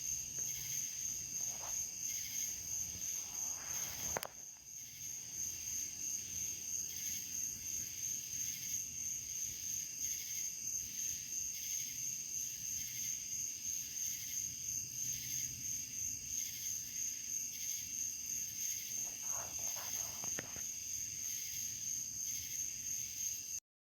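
Insect chorus trilling steadily at a high pitch, with an even pulsing rhythm; a brief click about four seconds in, and the sound cuts off suddenly near the end.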